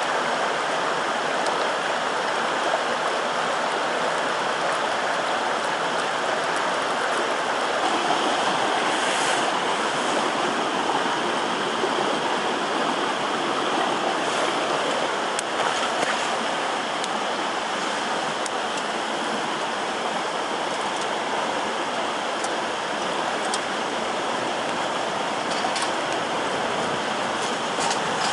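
Steady rushing of running water, with faint scattered ticks.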